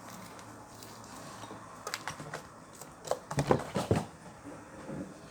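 A cluster of light clicks and knocks from objects being handled, most of them between about two and four seconds in.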